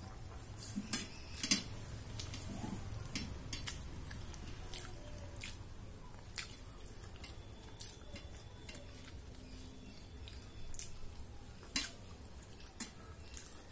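A person eating rice by hand from a stainless steel plate: scattered sharp, wet clicks of chewing and lip smacking, with fingers scooping food and wiping across the steel plate. The loudest clicks come about a second and a half in and again near the end.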